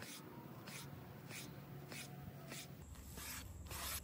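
Chef's knife slicing through raw flat iron steak against the grain on a bamboo cutting board: faint, soft strokes about every two-thirds of a second.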